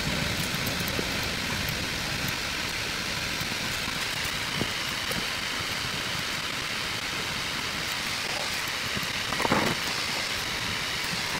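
Steady background hiss, with a brief louder sound about nine and a half seconds in.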